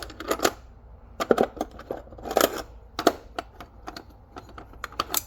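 Loose vintage metal hinges, brass among them, clinking and clattering against one another as they are rummaged through and picked out, in irregular clusters of sharp clicks.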